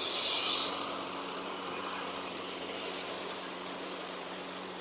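Small single-cylinder engine of a 1999 Yard-Man self-propelled lawn mower running steadily after being got going again, with two short hissing surges, near the start and about three seconds in.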